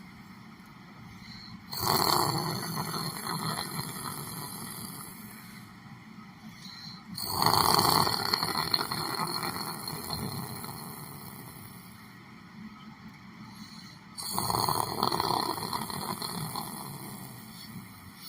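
A person snoring: three loud, rough snores about six to seven seconds apart, each starting suddenly and fading away over a few seconds.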